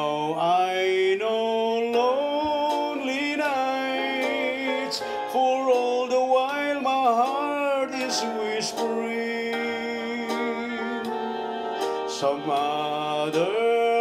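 Music: a slow ballad passage with no words sung, a gliding, wavering lead melody over sustained backing notes.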